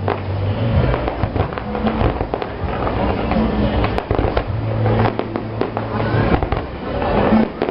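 Fireworks bursting and crackling: many bangs and crackles in quick, irregular succession.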